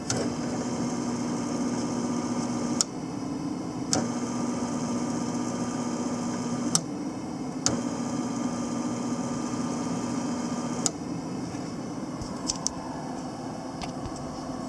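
Panasonic YD160SL7 semi-automatic welder switched on and off three times: each run of steady electrical hum lasts about three seconds and starts and stops with a sharp click, with a fainter steady hum between the runs.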